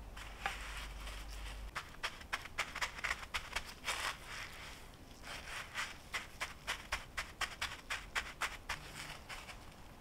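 Coarse breadcrumbs crunching and rustling as gloved hands press them onto an egg-dipped pork cutlet for tonkatsu. The crisp crackles come in quick runs, with a short lull in the middle.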